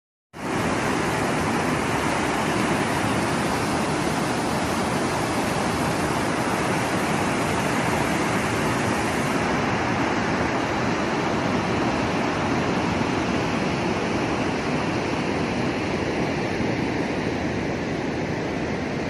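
Water pouring down a dam spillway and churning white where it hits the river below: a loud, steady rush.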